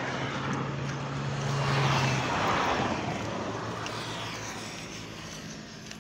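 A motor vehicle driving past on the road, its engine and tyre noise swelling to a peak about two seconds in and then fading away.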